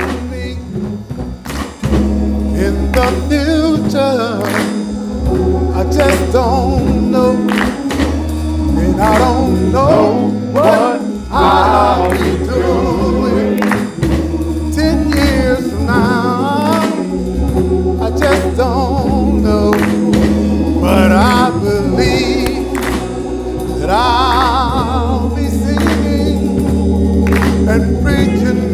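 Live gospel music: singing with a wavering vibrato over keyboard accompaniment, a strong bass line and frequent drum hits.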